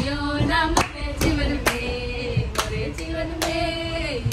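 Several women singing a Christian devotional song together in long, held notes, clapping their hands roughly every half second to keep the beat, over the low rumble of a moving train.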